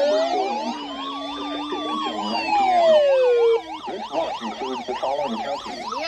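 Several NOAA weather radios sounding their alert alarms at once for a severe thunderstorm watch: overlapping siren-like tones, a slow rising and falling wail with fast warbling sweeps beneath it. The slow wail stops about three and a half seconds in, leaving the warbling tones.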